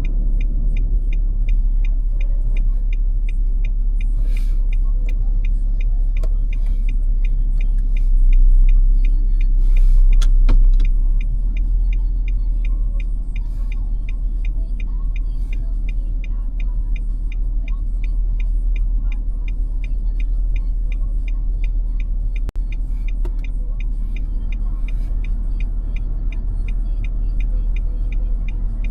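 Car driving on snowy roads, heard from inside the cabin: a steady low road and engine rumble that swells louder for a few seconds about eight seconds in. A fast, even ticking runs along the whole time.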